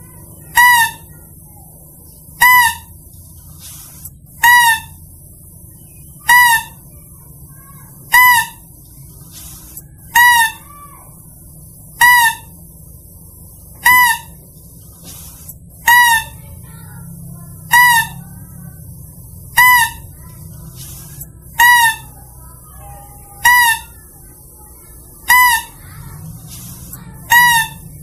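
Hunting lure call for the lesser mouse-deer (kancil): one short, high squeal repeated at a steady pace about every two seconds, over a faint low hum.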